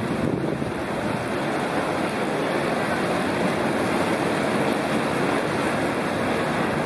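Water rushing and splashing steadily as it cascades over a concrete fish-ladder step.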